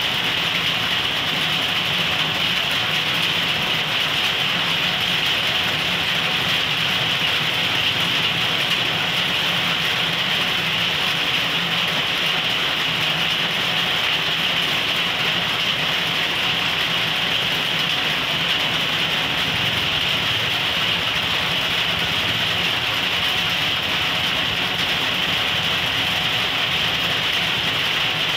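Heavy rain falling steadily, an even hiss with a low steady hum underneath.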